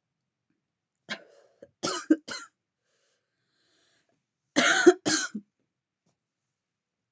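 A woman coughing after inhaling from a vape: a run of three or four coughs about a second in, then two louder coughs and a short third near five seconds.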